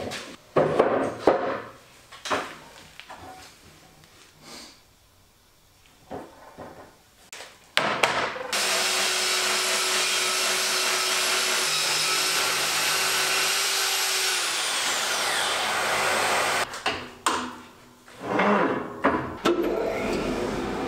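Heavy walnut slabs knocking and sliding on a trestle table, then a plunge track saw cutting along a guide rail with its dust extraction running for about eight seconds; the blade's high whine falls as the saw winds down. More wooden knocks follow, and a steady low machine hum comes in near the end.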